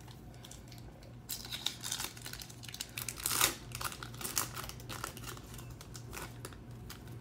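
Foil wrapper of a Topps Chrome trading-card pack being torn open and crinkled by hand, with irregular crackling for several seconds and the loudest rip about three and a half seconds in.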